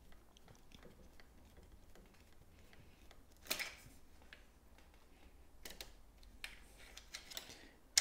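Faint small clicks and taps of metal parts being handled as a jockey wheel is fitted back into a bicycle rear derailleur cage with a folding multi-tool. A sharper click about three and a half seconds in, and a few more in the last three seconds.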